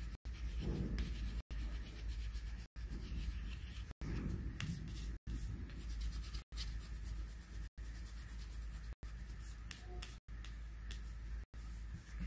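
A coloured pencil scratching and rubbing on paper as an area is shaded in, over a steady low hum. The sound cuts out for an instant a little more often than once a second.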